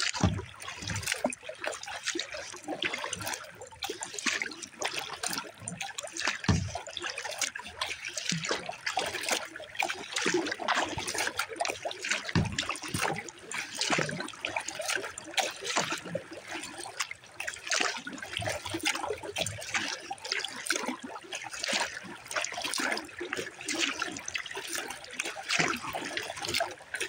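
Water trickling and splashing as a 10-foot Pelican Argo 100XR kayak is paddled: paddle blades dipping and dripping, and water running along the hull, as an unbroken run of small splashes.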